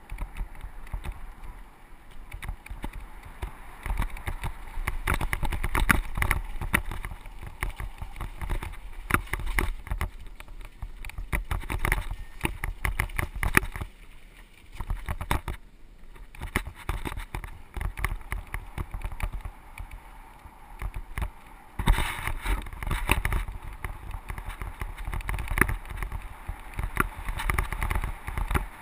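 Mountain bike riding down a dirt trail: tyres rumbling and crunching over the ground, with the bike's frame and parts rattling and clattering over bumps. The rattling eases briefly about halfway, then picks up again.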